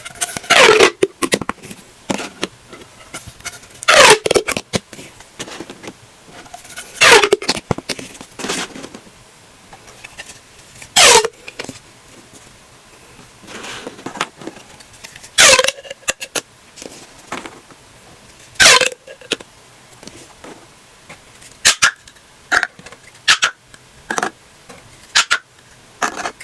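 Plastic pop tubes being stretched and squashed, each pull giving a loud crackling sweep that falls from high to low pitch in under a second, about every three to four seconds. Near the end come quicker, shorter pops.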